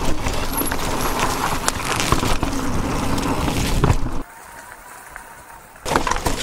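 E-mountain bike being ridden on a trail: wind rushing over the microphone, tyres on dirt and the bike rattling, with many sharp knocks. About four seconds in it drops suddenly to a much quieter, faint steady hum for about a second and a half, then the riding noise returns.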